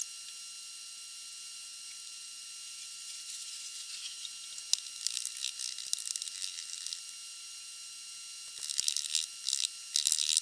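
Molding sand crumbled by hand and dropped onto a casting pattern in the flask: scattered clusters of faint, grainy high-pitched crackles over a steady faint hiss and whine.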